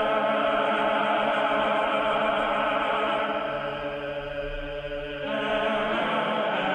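Background choral music: a choir singing long held chords, moving to a new chord about five seconds in.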